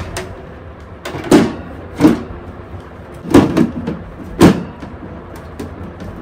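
Clear plastic hamster cage lid being set down on its base and clipped shut: five sharp plastic knocks and clicks, two of them close together in the middle.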